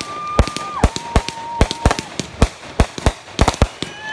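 Several Brothers High Falutin 500-gram firework cakes firing together in a finale, with rapid, irregular shell bursts several times a second. A steady whistling tone runs for about a second near the start, and a second, slightly lower one follows it.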